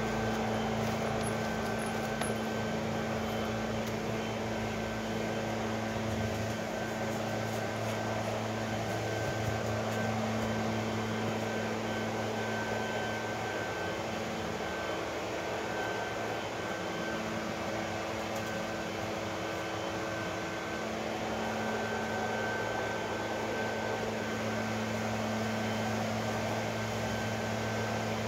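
A steady mechanical drone, a motor or fan running, with a low hum and a higher whine held throughout that waver slightly in strength.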